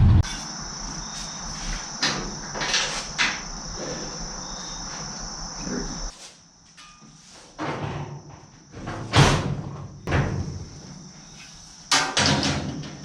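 Garage work sounds: a handful of separate knocks and clatters, the loudest about nine seconds in, against a steady high-pitched thin tone.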